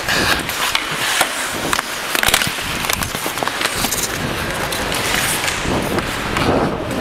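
Ice hockey play: skate blades scraping the ice, with frequent sharp clacks of sticks and puck, a few louder knocks among them.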